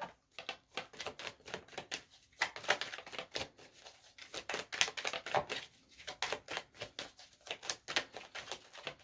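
Tarot deck being shuffled by hand: a rapid, uneven patter of cards clicking and slapping against each other.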